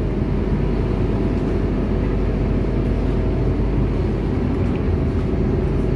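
A Transjakarta city bus running, heard from inside the cabin as a steady low drone with faint constant hums.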